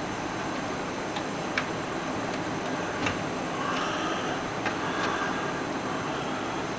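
A few light clicks and a brief rustle as cables and plastic connectors are handled inside a computer case, over a steady background hiss.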